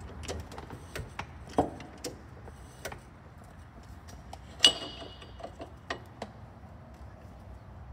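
Light metal clicks and knocks as the lock-nut collar on a hydraulic aircraft jack's ram is turned down by hand to lock the raised jack. About halfway through comes one sharp clink with a brief metallic ring.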